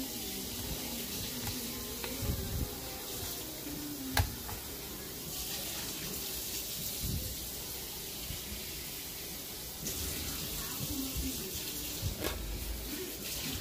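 Kitchen tap running water, with the hiss strengthening for a few seconds in the middle. A single sharp knock about four seconds in.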